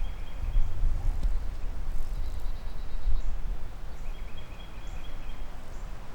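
Outdoor woodland ambience: a steady low rumble of wind on the microphone, with a short, high, steady-pitched trill at the very start and again about four seconds in.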